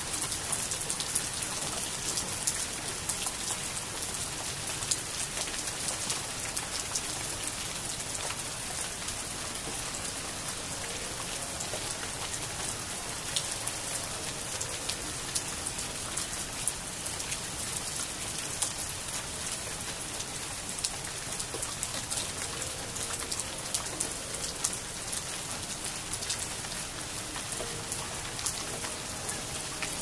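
Steady rain falling on leafy plants and a wooden bench: an even hiss crowded with many small, crisp drop hits.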